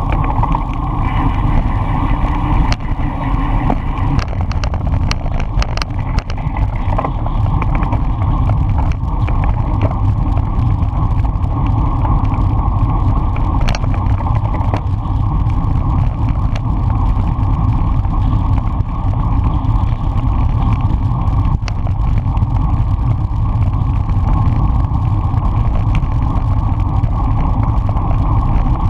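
Wind rushing over the microphone of a bicycle's handlebar-mounted camera during a fast road-race ride: a steady, loud low rumble. A few sharp clicks and knocks come through it, a cluster of them about three to six seconds in.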